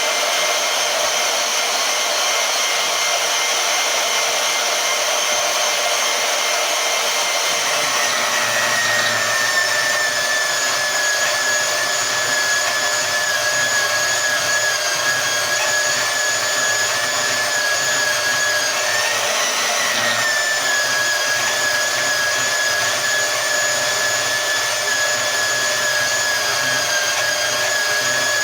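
Harbor Freight portable band saw running on a variable-speed setting near 4 while cutting through thick 5/16-inch metal stock, with a steady high motor whine. The pitch drops slightly about eight seconds in and rises briefly for a moment near twenty seconds.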